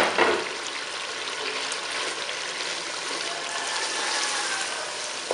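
Chicken korma gravy bubbling and sizzling in a non-stick pot while a metal spoon stirs crushed fried onions into it, with a short loud scrape just at the start.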